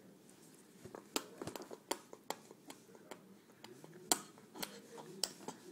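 Baby smacking his lips while chewing mashed banana: a run of short wet clicks, roughly two a second, the loudest about four seconds in.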